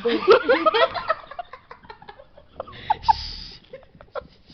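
Someone giggling in quick bursts through the first second or so, then scattered small clicks and a short breathy rush of noise about three seconds in.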